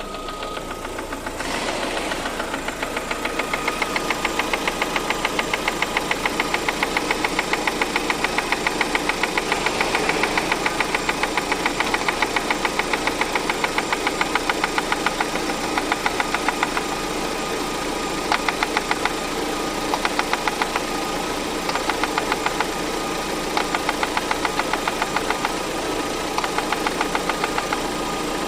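Car engine running with a rhythmic metallic knock, several knocks a second, that comes and goes in spells: the internal knock the engine is being checked for.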